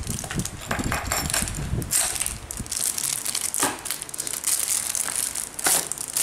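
Plastic film crinkling and rustling with scattered small clicks and knocks, as hands fit the metal clamp of a plastic grass guard onto a brush cutter's film-wrapped aluminium shaft.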